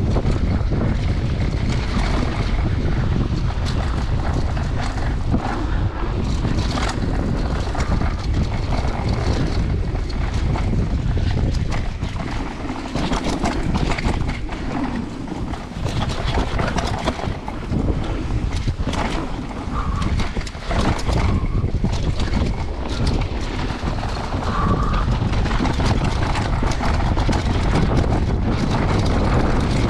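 Wind buffeting the microphone of a GoPro riding on a downhill mountain bike, over the rumble of tyres on a dirt trail. Frequent sharp clicks and knocks come from the bike rattling over rough ground.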